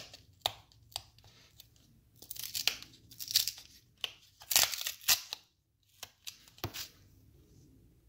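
Bubble wrap and plastic packaging being handled and pulled apart: a few sharp clicks and crackles, then two longer bursts of crinkling and tearing-like rustle, then more clicks near the end.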